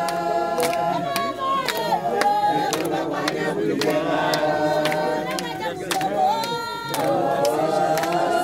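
A group of voices singing together in held, chant-like phrases, with sharp strikes keeping a rough beat about once a second.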